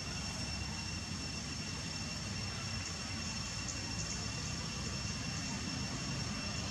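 Steady low outdoor rumble with two thin, steady high-pitched whines held above it.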